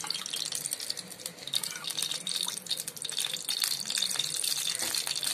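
Steady hiss of a lit gas stove burner under an iron kadai, with small scattered clicks of a spoon and pan as oil is ladled in.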